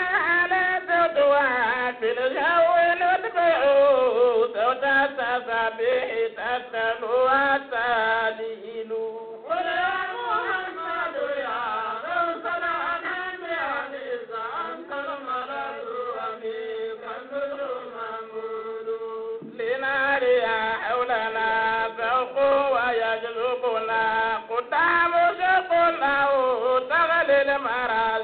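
A voice chanting an Arabic devotional poem in praise of the Prophet Muhammad, drawing out long gliding, ornamented lines over a steady held drone, with a short break about eight seconds in.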